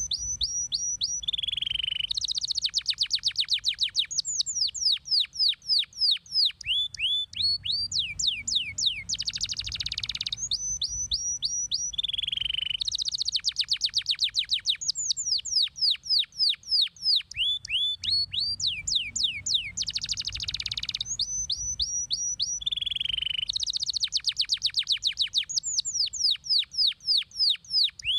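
Domestic canary singing continuously: fast rolling trills of falling notes, runs of short repeated chips and a held buzzy note, in phrases that recur about every eleven seconds.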